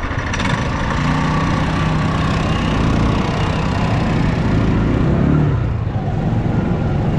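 Engine of a homemade three-wheeled off-road motorcycle running steadily under load as it rides across a field. Its pitch rises briefly about five seconds in, then drops back.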